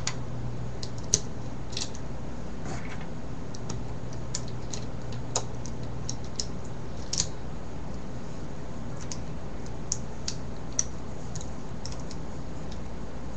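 Small plastic Rubik's 4x4 cube pieces clicking and tapping irregularly as they are handled and fitted onto the core, over a steady low hum.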